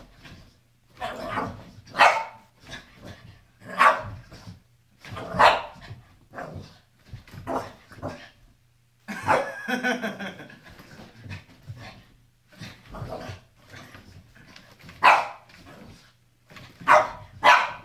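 Small dog barking repeatedly in bouts, sharp barks a second or two apart, at a helmet it dislikes.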